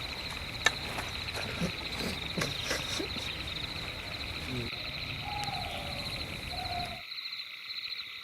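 Outdoor ambience of a steady insect chorus with fast, even chirps, with a few light knocks in the first three seconds and two short calls of a bird or animal around the middle.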